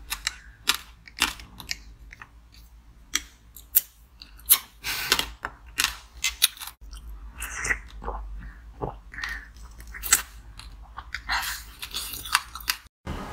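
Biting and chewing a frozen passion-fruit ice cup: irregular, sharp crunches of ice breaking between the teeth.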